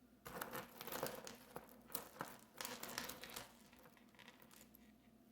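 Costume jewelry being handled and sorted by hand: rustling and crinkling with many small clicks of beads and chain for about three seconds, then quieter.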